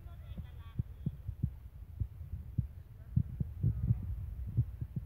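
Irregular low thumps over a steady low rumble on the microphone, with faint voices in the background.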